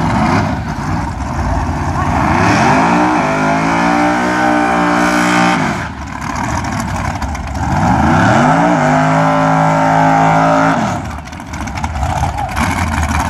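Drag race car engines revved up and held at high revs during burnouts, twice: each time the pitch climbs over about a second, holds steady for two to three seconds, then drops off.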